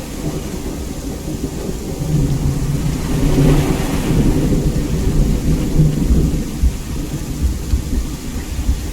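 Heavy rain falling steadily, with a long, deep rumble of thunder that swells about two seconds in and fades toward the end.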